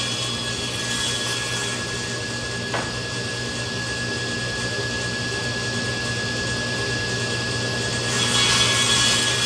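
Table saw running steadily, used with a crosscut sled to cut redwood, with a short knock about three seconds in.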